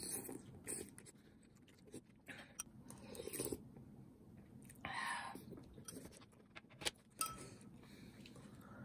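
A person eating fish roe stew: faint chewing, with a few small clicks of utensils scattered through.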